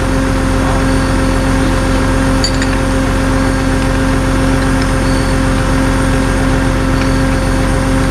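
An engine running steadily at constant speed, with a steady pitched hum over it and a few light clinks.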